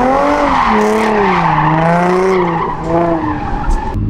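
Nissan Z drift car sliding around a cone, its engine revving up and down in waves with the throttle over the noise of tyres skidding and squealing on asphalt. Near the end the engine settles to a steadier, lower note.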